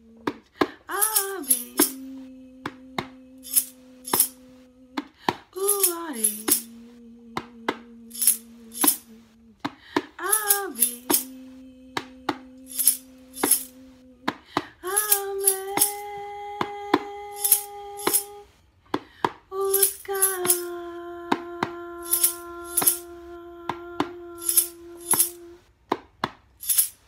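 A sistrum shaken in a steady beat of sharp rattles under a woman's voice chanting long held notes. Each note slides up into a steady tone held for about three seconds, five in all, and the last two are higher.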